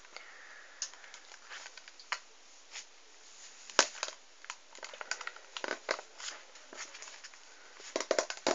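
Plastic packaging being handled and opened: irregular crackling and crinkling with sharp clicks, busiest about four seconds in and again near the end.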